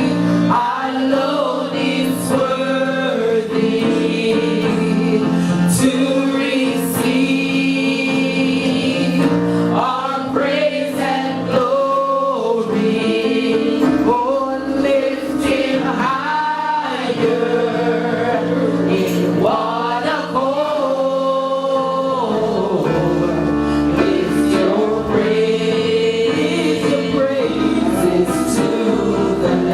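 Gospel choir singing a slow worship song over steady held instrumental chords.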